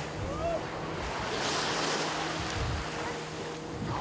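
Small waves washing in at the shore, swelling twice, with wind on the microphone and a faint steady drone from boat engines out on the water.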